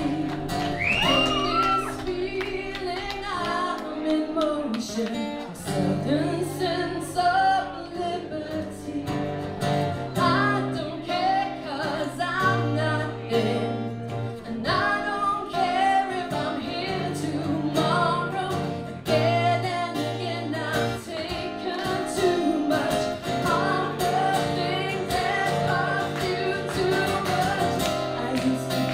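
Music: a woman singing with guitar accompaniment.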